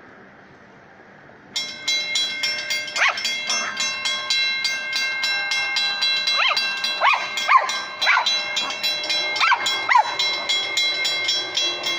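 A railroad crossing warning bell starts about a second and a half in and rings rapidly and steadily, signalling an approaching train. Over it, a small dog whines repeatedly in short rising-and-falling cries.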